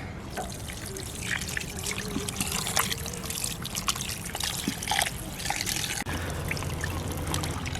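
Water trickling and pouring over raw salmon heads as they are washed by hand, with small splashes and handling clicks throughout.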